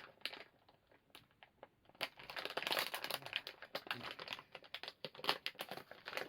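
Packaging of a toy mystery packet crinkling and tearing as it is wrenched open. A run of short, sharp crackles, sparse at first and much denser from about two seconds in.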